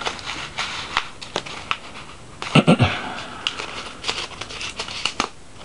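Packaging being handled: paper and plastic rustling, broken by scattered sharp clicks and taps.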